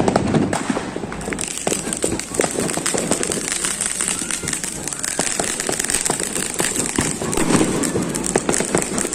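New Year fireworks and firecrackers going off in a dense, irregular run of sharp pops and crackles.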